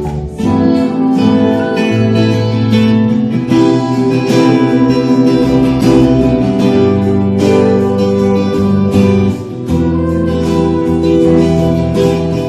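Live band playing: strummed acoustic guitar over electric bass and drums.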